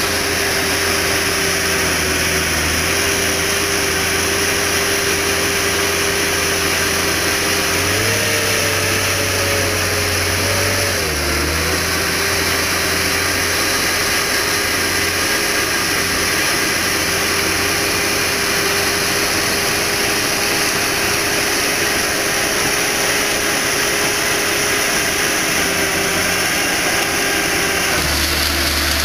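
Valmet 911.1 X3M forest harvester's diesel engine running steadily under working load, with a steady whining tone on top. The whine wavers and the pitch shifts for a few seconds about eight seconds in.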